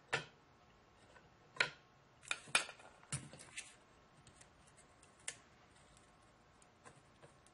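About seven light, sharp clicks and taps in the first five seconds or so, then only a few faint ticks: a copper-foiled glass pendant, soldering iron and solder being handled and set against a wooden work board while soldering.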